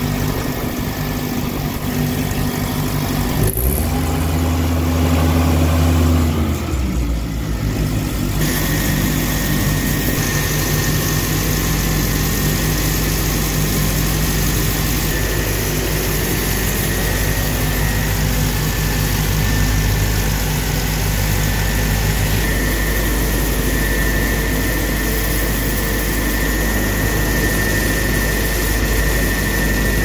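The Ford four-cylinder gasoline engine of a sewer jetter running steadily. Its low sound swells for a few seconds about four seconds in, and a thin high whine joins it from about eight seconds in.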